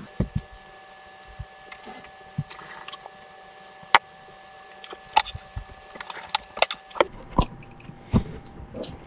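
Irregular clicks, taps and knocks of hands handling faucet parts and fittings in a cabinet under a sink, with one sharper click about four seconds in. A faint steady tone sits underneath and stops about seven seconds in.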